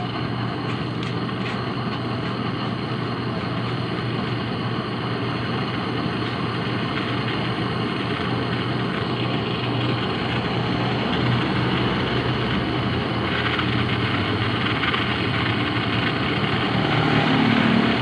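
Brazing torch flame burning steadily with a rushing hiss and a low hum underneath, heating a pinched-off copper refrigerant tube red-hot to braze its end shut.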